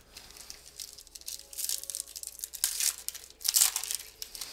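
Crinkling and tearing of a trading-card pack wrapper being torn open by hand, an irregular run of crackles that is loudest a little after three and a half seconds in.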